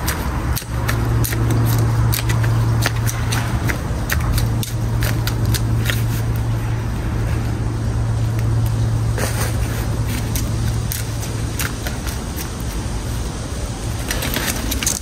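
An engine running steadily with a low hum that drops away about eleven seconds in, over scattered sharp clicks and scraping.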